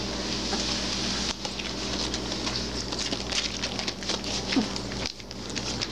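Plastic tarp crinkling and rustling as three-week-old basset hound puppies crawl and scramble over it, with a brief rising whimper from a puppy about four and a half seconds in.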